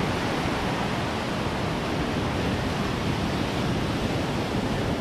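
Ocean surf breaking and washing up the sand: a steady rush of noise.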